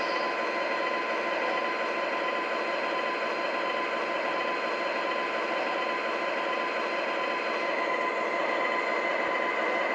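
MTH RailKing ES44AC model diesel locomotive's Proto-Sound 3.0 sound system playing a steady diesel engine idle through its small onboard speaker.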